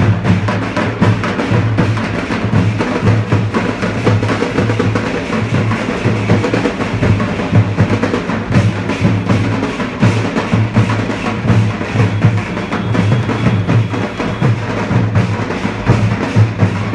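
Loud drum-heavy music with a fast beat of rapid strokes over a pulsing bass.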